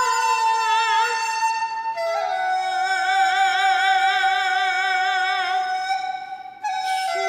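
Dizi (Chinese bamboo flute) playing a slow Kunqu aria melody in long held notes with wide vibrato, moving to a lower note about two seconds in, with a woman singing the aria along with it. Near the end the sound dips and a short breath is drawn before the next note.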